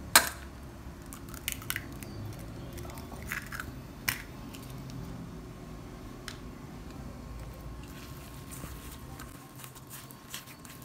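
Hands squishing and kneading raw ground beef with breadcrumbs in a stainless steel bowl. Sharp clicks and knocks against the metal bowl come through, the loudest just after the start and several smaller ones over the next few seconds.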